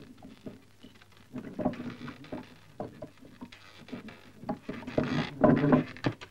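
Irregular clicking and clattering, with denser rattling stretches about a second and a half in and again around five seconds in.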